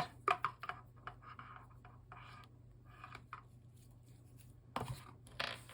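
Hands handling small accessories and packaging on a table: light scraping, rubbing and small clicks, with a couple of louder scrapes near the end.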